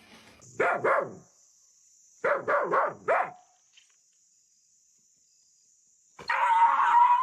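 Dog barking: two barks about a second in, then four quick barks. Near the end comes a louder, longer noisy burst.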